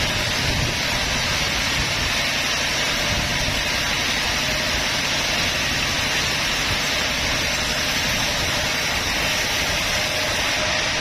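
Sawmill bandsaw running with a loud, steady, even noise.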